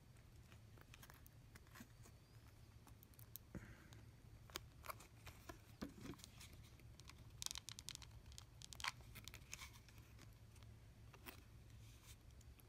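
Near silence: a steady low hum with faint scattered clicks and rustles of small parts and fabric being handled at a workbench, a little louder about seven and a half and nine seconds in.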